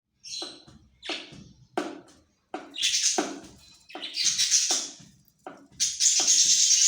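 Baby bird giving repeated raspy, hissing begging calls, about one every half second to second, the last one longer and louder near the end.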